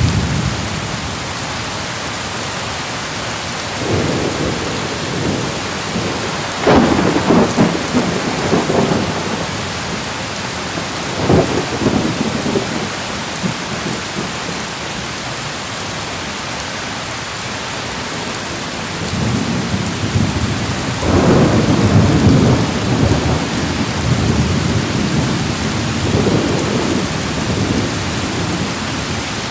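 A thunderstorm: steady rain hiss with several rolls of thunder. There is a short rumble a few seconds in, sharper and louder claps about a quarter and a third of the way through, and a long rolling rumble over the last third.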